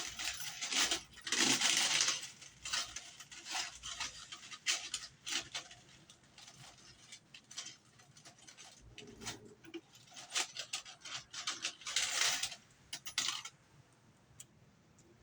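Screws and hand tools being handled: irregular clicks and small metallic clinks, with two rustling, scraping bursts of about a second each, one near the start and one near the end.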